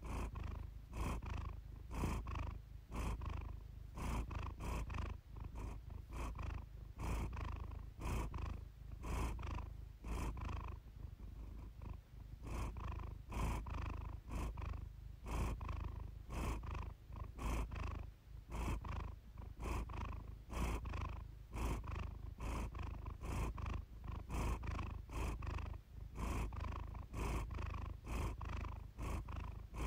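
Siamese cat purring steadily in an even, pulsing rhythm.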